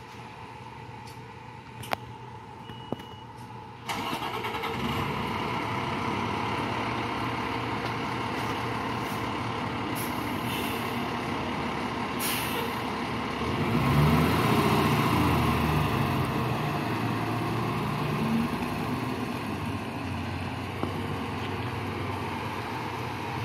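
Fire engine's diesel engine starting about four seconds in and then running at idle, after two sharp clicks. A short hiss of air comes about twelve seconds in, and the engine then runs louder for a few seconds as the truck moves off before settling back.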